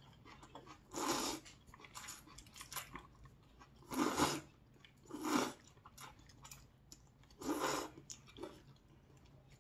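A person slurping jjamppong noodles (Korean spicy seafood noodle soup), four loud slurps a second or more apart, with softer chewing and lip-smacking in between.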